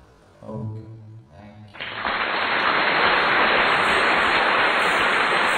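Audience applauding, starting suddenly about two seconds in and holding steady. Just before it, a brief voice.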